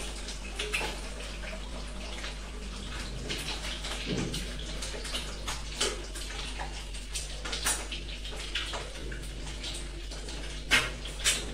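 Kitchen work: scattered light clicks and clatters over a steady low hum.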